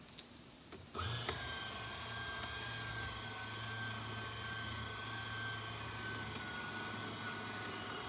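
BMW E30 power antenna motor running with only the red wire powered, winding its new mast back down. A steady electric whine starts about a second in and winds down in pitch near the end as the motor stops itself with the mast retracted.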